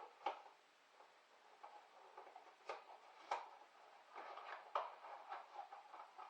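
Scattered faint clicks and light knocks at irregular intervals, about a dozen of them, over a low hiss.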